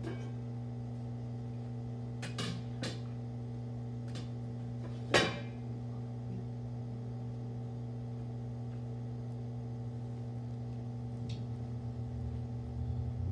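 A steady low electrical hum, with a few small clicks a couple of seconds in and one sharper click or knock about five seconds in.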